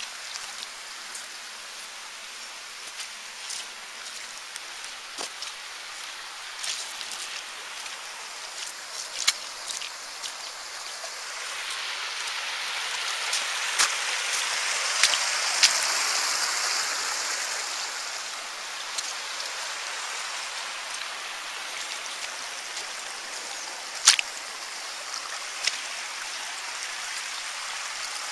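A small stream running over stones, a steady rushing hiss that swells louder for several seconds midway, then settles back. Scattered sharp clicks sound over it, the loudest about three-quarters of the way through.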